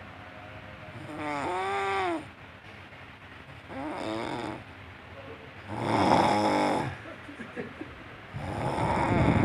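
A man snoring loudly in deep sleep, one snore every two seconds or so. Some snores carry a wavering pitched tone, and the loudest comes about six seconds in.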